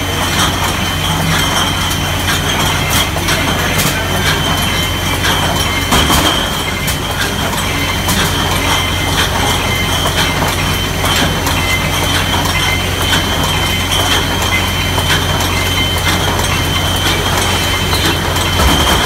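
Mobile wine bottling line running: a steady machine hum with a constant high whine, and glass bottles clinking and knocking irregularly as they move through the sparger and the rotary filler.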